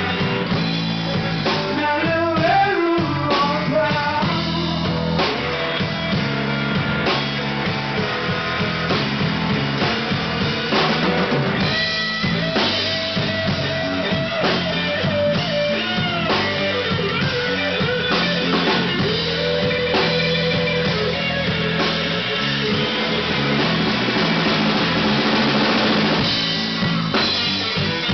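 Live rock band with an amplified Stratocaster-style electric guitar and a drum kit playing; the guitar plays bent and long held notes over the drums.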